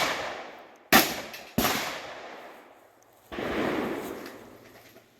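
Shotgun shots, each followed by its echo dying away. Two sharp shots come about a second in and half a second apart, then a third, duller blast with a longer tail a little over three seconds in.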